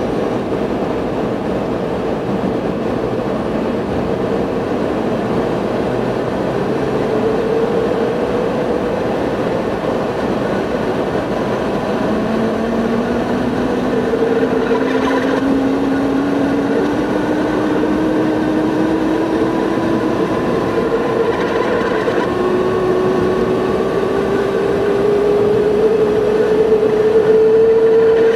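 Steady cabin noise of a BMW being driven: tyre and road rumble with engine hum. A humming tone slowly rises in pitch through the second half.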